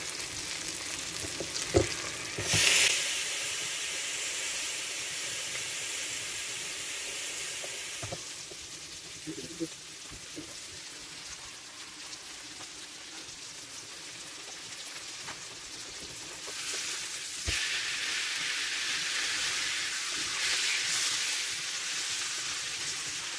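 Steak sizzling in its juices on the hot plates of an electric waffle maker: a steady frying hiss with a few small clicks and pops. The sizzle swells briefly about 3 seconds in, dies down in the middle, and grows louder again from about 17 seconds in.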